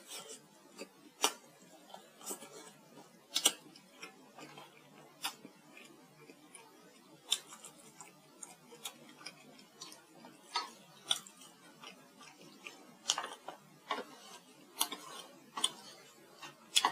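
Close-miked mouth sounds of eating stewed pork ribs: chewing and lip-smacking with irregular sharp wet clicks, about one or two a second.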